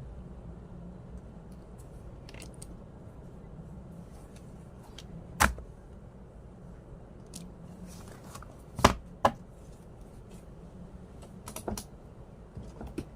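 A few scattered sharp taps and clicks over a steady low hum in a small room: the loudest about five and a half seconds in, a pair close together near nine seconds, and a few softer ones near the end.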